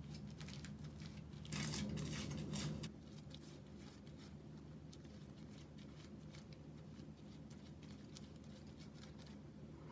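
Aluminium hair foil crinkling and rustling while bleach is brushed onto a section of hair with a tint brush, with scattered small clicks and one longer, louder rustle about two seconds in. A low steady hum runs underneath.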